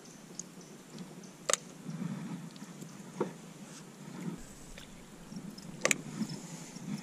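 Faint handling noise from a spinning rod and reel in a small aluminum jon boat: three sharp clicks, about one and a half, three and six seconds in, over a low rumble.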